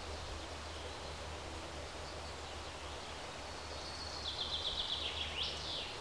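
A small songbird sings a short, high, rapid trill of repeated notes from about three and a half seconds in, ending in a quick rising-and-falling note, over a steady background hiss and low hum.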